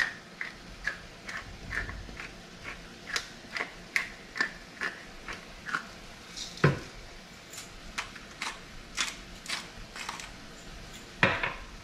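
Hand-twisted pepper mill and salt grinder grinding over a pan, a run of short dry clicks about two a second. A single louder knock comes about halfway through.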